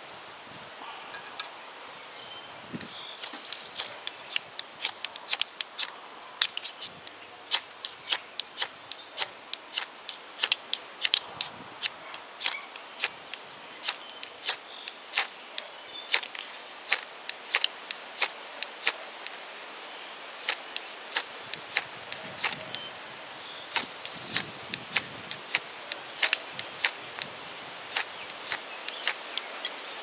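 Ferro rod struck over and over with a steel striker, a quick sharp scrape about twice a second, throwing sparks into a palm-fiber bird's-nest tinder bundle. The strikes start about three seconds in.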